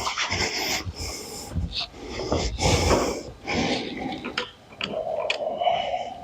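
Irregular scuffing and rubbing as a rubber window gasket is pushed and worked into place by hand, with heavy breathing; a short squeak-like tone near the end.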